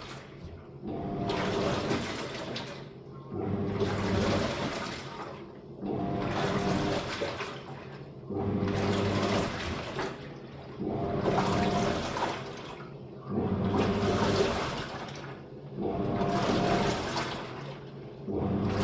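A Living & Co 5.5 kg top-loading washing machine agitating a load. The impeller motor hums and the water churns in swells about every two and a half seconds, easing off between strokes as the wash action turns back and forth.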